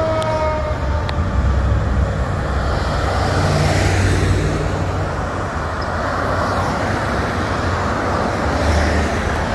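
Steady road traffic: car and truck engines running as vehicles pass close by. At the start, a fire engine's siren winds down in pitch and fades out within about a second.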